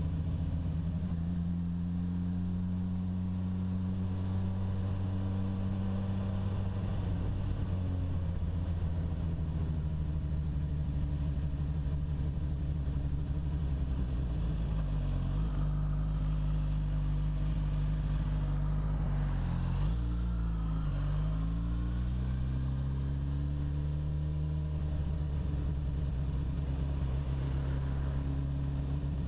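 Suzuki GSX-S1000's inline-four engine running while the bike is ridden, a steady note with a brief dip about halfway through, then a drop and a rising rev a few seconds later.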